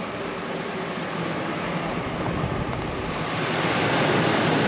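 Rooftop air-conditioner heat pump unit, just switched on, running with its fan blowing a steady rush of air through the ceiling vent. It grows louder about three seconds in.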